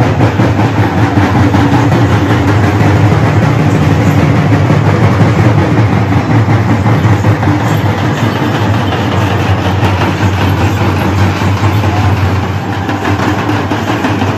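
A group of dappu frame drums beaten loud and fast in a dense, unbroken rhythm.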